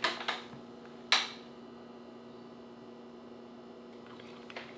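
A steady low hum, with a few short clicks near the start, the loudest about a second in.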